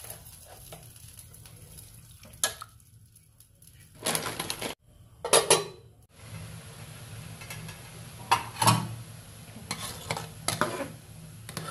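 A metal utensil stirring a pot of boiling baby octopus, clinking and scraping against the metal pot in short bursts over a steady bubbling hiss.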